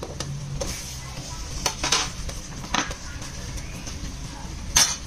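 Sliced tomatoes tipped from a plate into a pot of simmering broth, with a metal ladle clinking against the pot several times; the loudest clink comes near the end.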